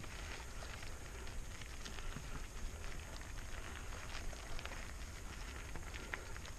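Mountain bike tyres rolling over loose gravel: a steady crunch peppered with small crackles and ticks of stones, over a steady low rumble.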